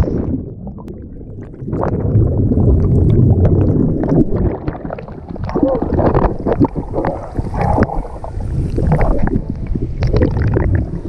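Sea water churning and bubbling around a camera plunged underwater with a swimmer: a low, muffled rumble full of crackling bubbles, with sloshing as the swimmer bobs at the surface and goes under again.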